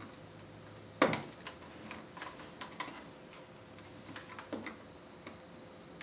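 Small plastic clicks and taps as a clip-in connector inside an open Asus X540L laptop is pried at with a small screwdriver and fingers. One sharp click comes about a second in, followed by scattered lighter ticks.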